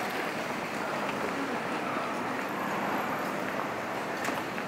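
Busy shopping-street ambience: a steady murmur of indistinct voices and general bustle, with one sharp click about four seconds in.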